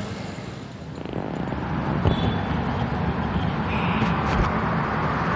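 Road traffic noise with vehicle engines running, growing louder about a second in.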